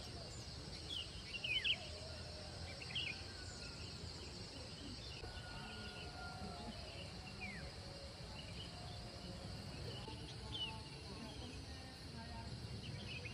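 Outdoor morning ambience: scattered short bird calls with quick falling notes, loudest about a second and a half in, over a steady high hiss and a low rumble.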